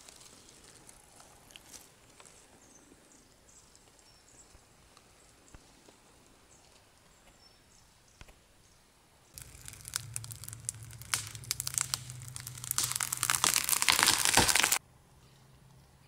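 Aspen tree falling: after a long near-quiet stretch, the trunk starts to crack and the crown comes down through the branches in a rising rush of snapping and tearing wood, with a low hum beneath. It ends about five seconds later in a deep thud as the trunk hits the ground, then cuts off suddenly.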